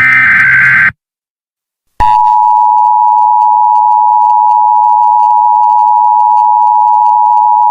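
Emergency Alert System tones: a one-second burst of SAME digital header data, about a second of silence, then the EAS attention signal, a steady two-tone (853 and 960 Hz) alert tone, starting about two seconds in and holding. It announces an emergency alert message.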